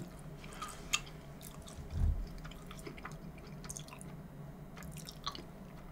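Faint eating sounds: quiet chewing with a few small scattered clicks and a soft low thump about two seconds in.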